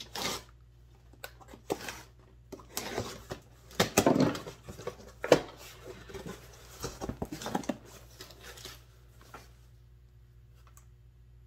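Cardboard shipping box being opened by hand: a run of irregular rustles, scrapes and knocks that dies away about nine seconds in.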